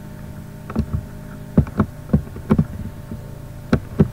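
Computer keyboard keys pressed in quick clusters, about nine short taps in all, as figures are deleted and typed into the table's cells. Under them runs a steady low electrical hum.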